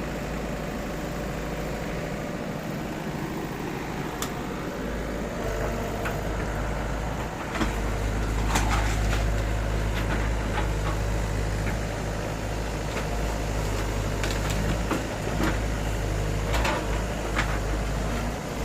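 Hydraulic excavator's diesel engine running with a steady low drone, picking up load and getting louder about a third of the way in, with occasional knocks throughout.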